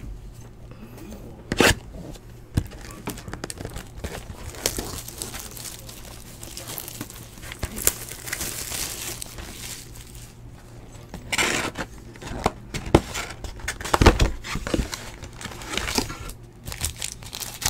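Plastic shrink wrap torn off a cardboard trading-card box and crumpled, crinkling and crackling irregularly, with a few sharper snaps.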